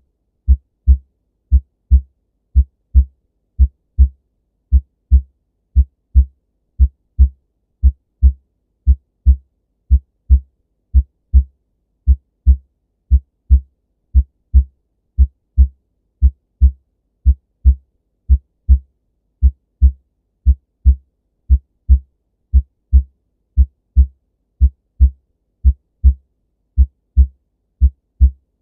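Normal human heart sounds: a steady lub-dub rhythm of paired low thuds, the first and second heart sounds (S1 and S2), repeating at about one and a half beats a second.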